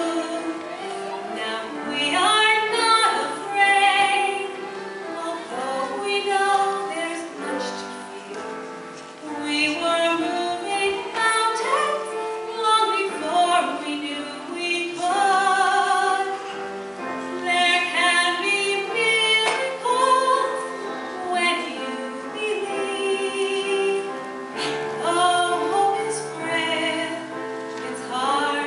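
Female voices singing a slow ballad, holding long notes with vibrato over a steady instrumental accompaniment.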